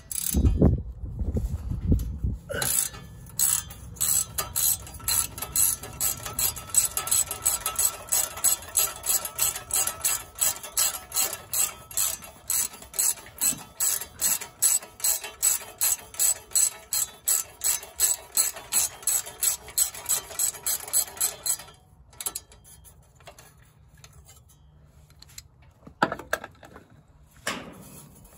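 Hand ratchet wrench clicking in a steady rhythm, about two to three clicks a second, as it winds a bolt out of the engine. The clicking starts a couple of seconds in and stops about three-quarters of the way through, and a couple of light knocks follow.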